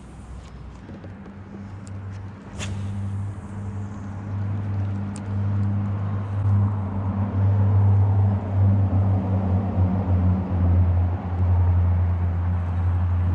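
A steady low engine hum that grows louder through the whole stretch, with a few faint clicks about two to three seconds in.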